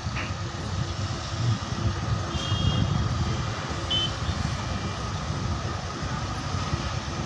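Steady rumble of road traffic, with two short high beeps from a vehicle about two and four seconds in.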